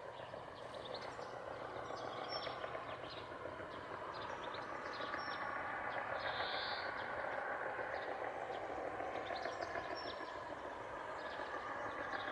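Outdoor nature ambience: a dense, steady chatter with short high bird chirps scattered over it, growing a little louder over the first few seconds.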